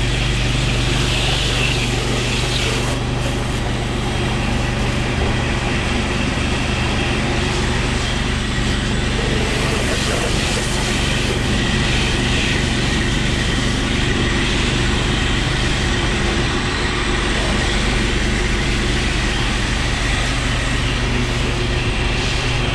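A 10.5 GPM pressure washer rig running steadily: an even engine hum under the continuous hiss of a high-volume water spray.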